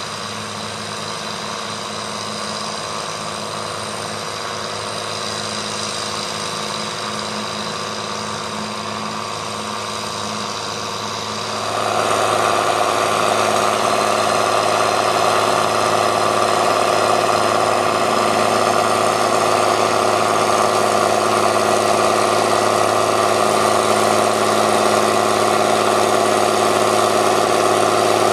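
Tractor diesel engine running steadily; about twelve seconds in it gets suddenly louder and fuller, and holds that level.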